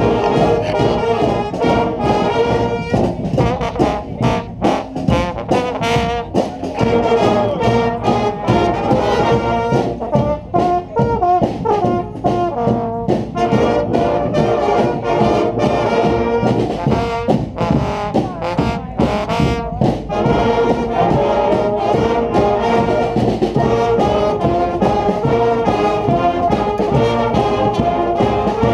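Street brass band playing a rock tune, with trombones and trumpets sounding together and sharp percussive hits throughout.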